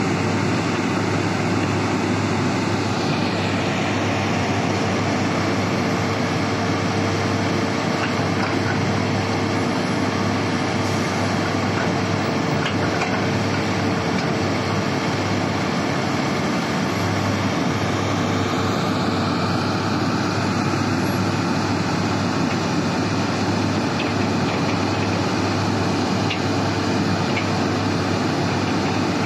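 Heavy diesel engines of a dump truck and a Komatsu 350 hydraulic excavator running at an earthworks, a steady loud drone with a constant hum.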